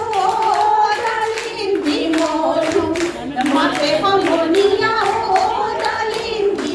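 Women's voices singing an Assamese Jeng Bihu folk song together, with steady rhythmic hand clapping.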